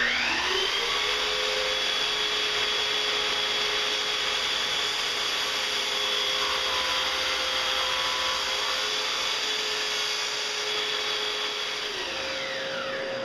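Miter saw motor spinning up at once to a steady high whine, running for about twelve seconds while cutting a miter, then winding down near the end.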